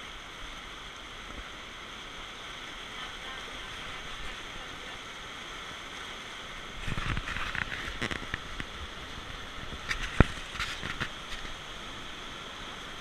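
Whitewater rushing down a weir's raft chute, heard from an inflatable raft riding down it. Louder bursts of splashing and knocking come about seven and ten seconds in, with one sharp knock, the loudest sound, near ten seconds.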